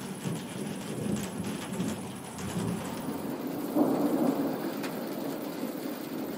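Steady rain with rolling thunder rumbling underneath, a louder rumble swelling about four seconds in.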